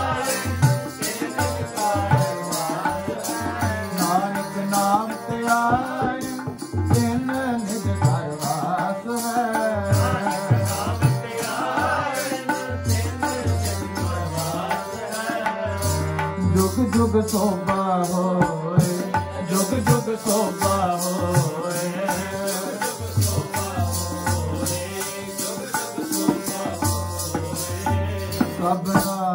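Sikh kirtan music: a wavering melody over a steady tabla beat.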